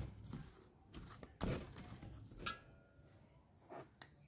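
Scattered knocks and scrapes of a stainless steel plate as chhena is kneaded and pressed by hand on it; one knock about halfway through leaves a brief metallic ring.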